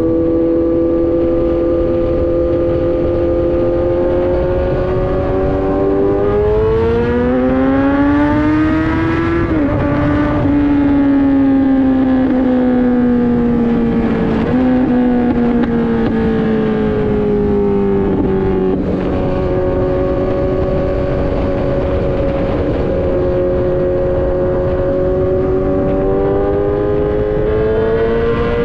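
Kawasaki Z900's inline-four engine through an Austin Racing full exhaust, heard from the rider's seat on the move. It runs steadily, the revs climb for a few seconds and drop sharply at a gear change about nine seconds in, the pitch then sinks slowly for several seconds, steps back up about two-thirds of the way through, and settles into a steady cruise.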